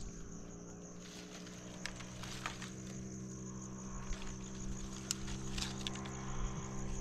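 Steady high trill of crickets or other insects, with scattered light clicks and cracks of dry branches being handled and sorted, over a low steady hum.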